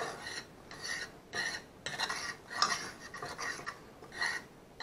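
A metal fork stirring and scraping fried rice around a frying pan: repeated short scrapes, a couple a second, with brief pauses between strokes.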